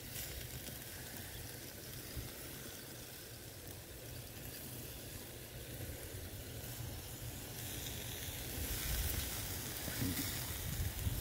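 Marinated beef ribs sizzling on a charcoal grill as marinade is poured over them, a steady hiss that grows louder about eight seconds in.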